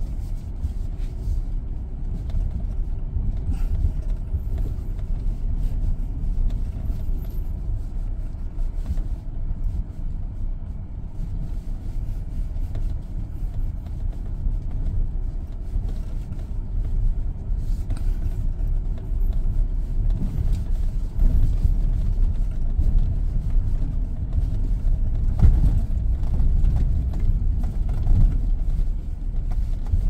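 SsangYong Rexton Sports Khan pickup driving off-road: a steady low rumble of engine and drivetrain, growing louder in the last several seconds.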